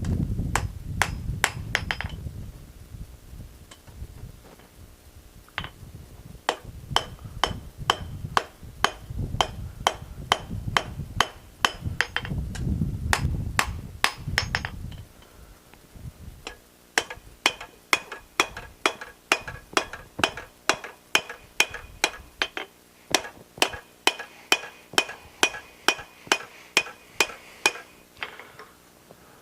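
Hand hammer striking steel on an anvil's horn, in runs of quick blows with metallic ringing; the last run is steady at about three blows a second. A low rumble sits under the first half and stops about halfway.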